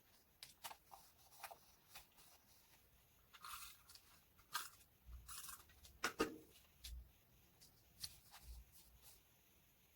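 Quiet paper-crafting sounds from working on a journal spread: scattered light taps and clicks, with two short rustling swishes of paper about three and a half and five and a half seconds in.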